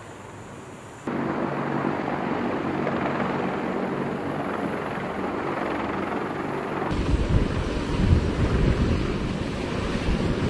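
CH-53E Super Stallion heavy-lift helicopters flying past, their rotor and turbine noise coming in suddenly about a second in. About seven seconds in the sound turns heavier and louder, with a low, fast rotor beat.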